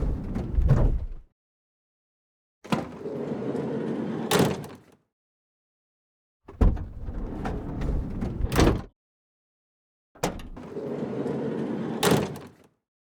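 Van sliding door being opened three times: each time a sharp latch click, a rolling run along the track, and a loud clunk as it reaches the end stop. It opens with the tail of an earlier run.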